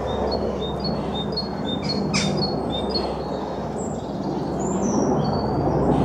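Small songbirds chirping, a rapid run of short high notes repeated all through, over steady low background noise; one sharp click about two seconds in.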